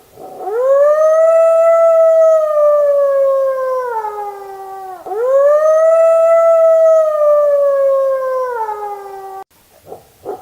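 Wolf howling: two long howls, each about four seconds, that rise quickly, hold, then slide down in pitch, with a short break between them.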